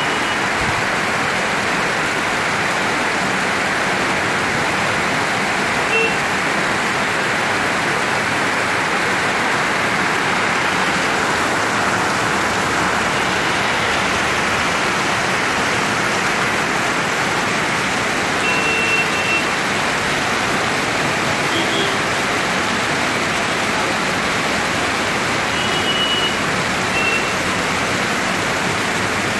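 Heavy monsoon rain pouring steadily, an even hiss. A few brief faint tones sound now and then.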